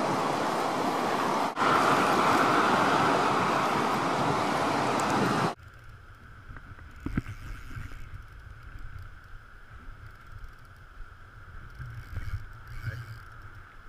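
Fast river water rushing, a loud steady hiss, which cuts off abruptly about five and a half seconds in, leaving a faint low rumble of wind on the microphone.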